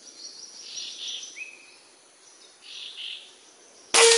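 Forest birds calling, with a short rising whistle heard twice, over insect chirring. About four seconds in comes a single sharp air-rifle shot, the loudest sound, followed by a brief metallic ring.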